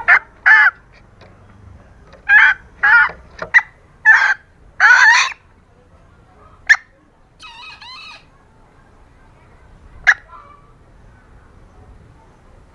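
Female green junglefowl calling: a quick series of short, loud calls, ending in a longer one about five seconds in, then a softer wavering call and a single sharp call about ten seconds in. This is the hen's call, used to lure males in breeding season.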